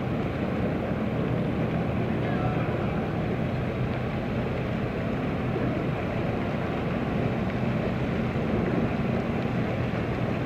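Motorboat engines running with a steady low drone as boats move through the harbour, mixed with wind buffeting the microphone.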